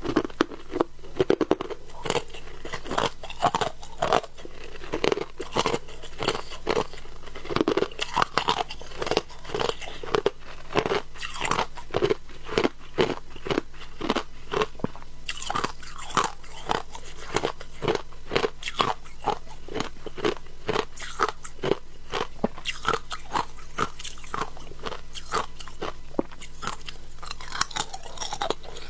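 A person biting and chewing shaved ice close to the microphone: a steady run of crisp, irregular crunches, about three or four a second.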